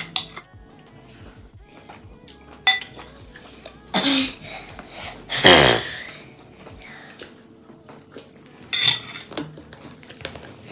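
Metal spoon clinking and scraping against a ceramic soup bowl during eating, a few sharp clinks scattered through. About halfway through, a short sound sliding down in pitch is the loudest thing.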